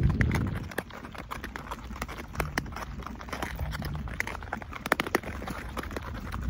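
Lake ice crackling with many irregular sharp ticks and clicks as the sheet ice shifts while a lead opens across it. Wind rumbles on the microphone at the start.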